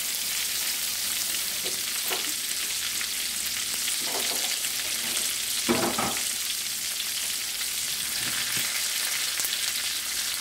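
Oxtail pieces sizzling and crackling steadily in oil in a T-Fal nonstick skillet, browning on the leftover heat of a stove burner that has just been switched off. A brief louder sound comes about six seconds in.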